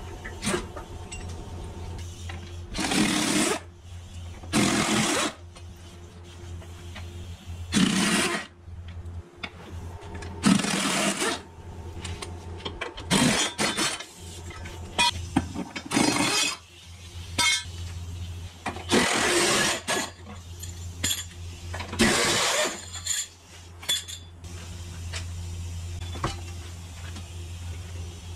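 A power tool on the bolts under a vehicle, run in short bursts of half a second to a second, eight or nine times a few seconds apart, with a steady low hum underneath.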